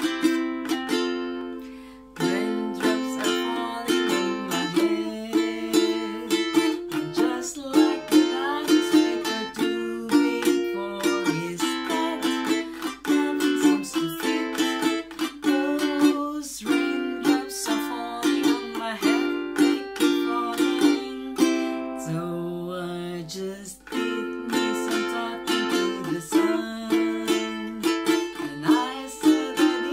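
A ukulele strummed in steady chords, with a woman singing along. A chord rings out and fades for the first two seconds before the strumming starts again.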